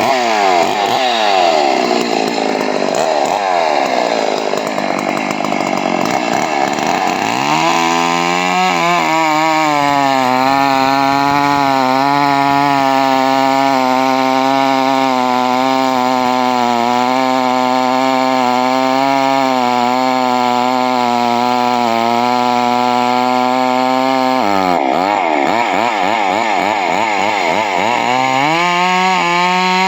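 A two-stroke Stihl chainsaw runs at high revs while cutting into a tree trunk. Its engine pitch wavers up and down for the first several seconds and again about 25 seconds in, and holds steady in between.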